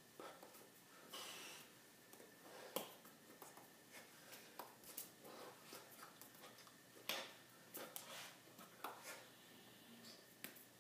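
Near silence with scattered faint clicks and taps from a person signing: hands meeting each other and the body, and mouth and breath sounds. The loudest taps come about three and seven seconds in.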